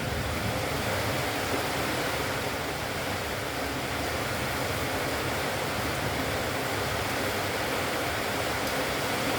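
Steady, even rushing noise with no distinct calls in it.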